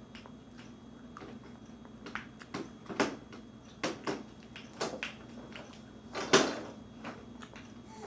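A baby knocking and banging a hard object against its chair: about eight irregular knocks, the loudest about six seconds in.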